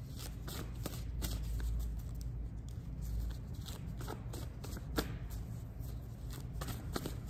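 A tarot deck being shuffled and handled by hand: a run of irregular soft clicks and card riffles, with one sharper snap about five seconds in.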